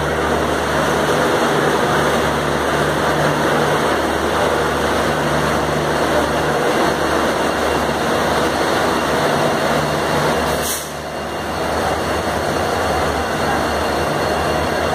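Diesel engines of a standing train idling: a steady low rumble and hum, with a brief dip and a sharp click about eleven seconds in.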